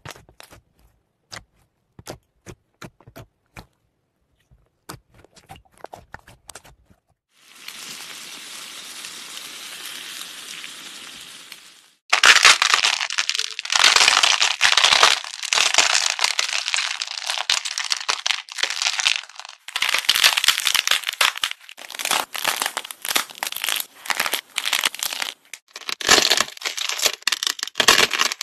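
Hands working slime and squeezing soft crafted fake-food items. First come scattered small sticky clicks and pops, then a steady hiss for a few seconds. From about twelve seconds in, loud crinkly crackling and crushing follows from squeezing and pulling apart.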